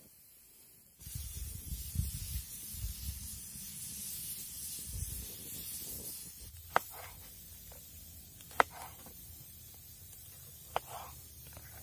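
A pressure cooker set in a wood fire hisses steadily for about five seconds. Then three sharp knocks of a knife on a wooden cutting board, a second or two apart.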